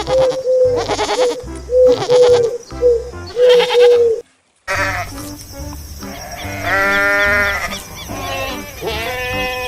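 Goats bleating repeatedly, with a long wavering bleat about seven seconds in, over background music with a steady beat; the sound cuts out briefly just after four seconds.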